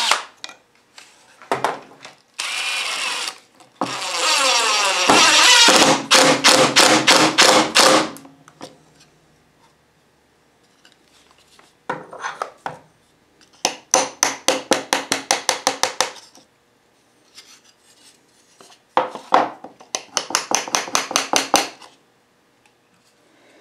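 DeWalt cordless drill driving screws into a wooden block: short runs of motor whirring, one winding up in pitch, and three stretches of rapid, even clicking as the screws drive home.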